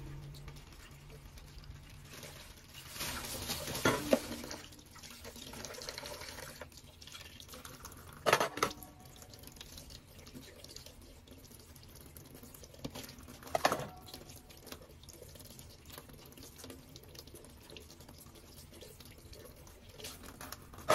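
Tap water running and dripping into a plastic bag of mussels in a stainless steel sink, with three brief sharper sounds about 4, 8 and 14 seconds in.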